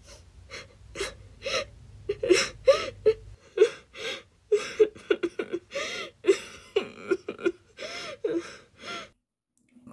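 A person sobbing in a run of short, catching gasps and whimpers, stopping about nine seconds in.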